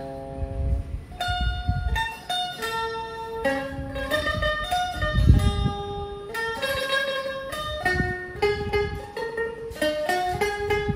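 Suzuki Ran red electric soprano taishogoto played solo: a chord rings out at the start, then bright plucked metal-string notes pick out a slow melody, each note ringing and fading. A dull low thump comes about five seconds in.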